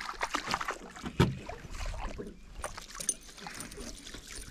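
Water splashing and sloshing as a hooked perch is brought to the surface and scooped into a landing net, with one sharp splash about a second in.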